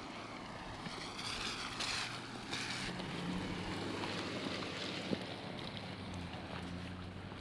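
Wind buffeting the microphone, with a couple of stronger gusts in the first few seconds, over a low steady hum.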